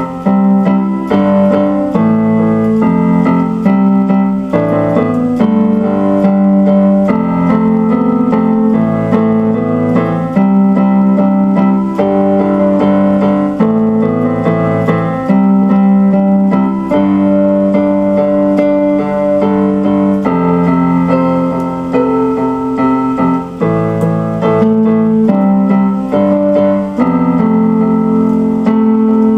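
Instrumental keyboard music: electric piano playing steady chords with a melody over them.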